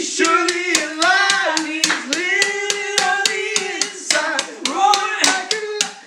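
Men singing a worship song with long held notes over a steady clapping beat of about three claps a second.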